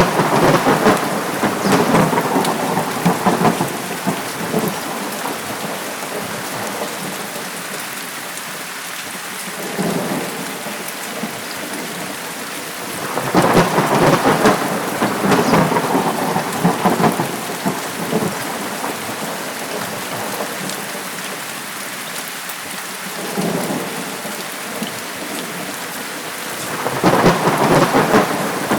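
Steady heavy rain with rolling thunder: a long rumble at the start, another about halfway through, and a third building near the end, with fainter rumbles between.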